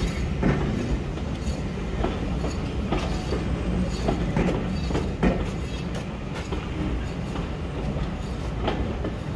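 Steam locomotive running, with sharp beats about twice a second over a steady low rumble.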